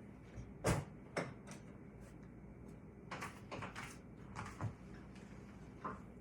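A string of clunks and clicks from handling a Skil table saw's parts as its blade and locking mechanism are adjusted. The loudest clunk comes about a second in, with a quick run of clicks in the middle and a last knock near the end.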